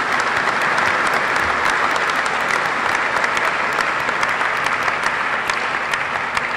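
A large audience applauding, many hands clapping in a dense, steady stream.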